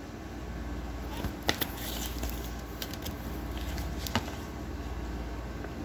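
Pages of a paper recipe book being handled and turned: a few light clicks and soft rustles over a steady low room hum.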